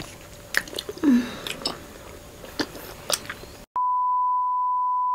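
Close-up chewing of honeycomb, with small wet clicks and smacks of the mouth. After about three and a half seconds it cuts abruptly to a steady single-pitch test-tone beep, the tone that goes with TV colour bars.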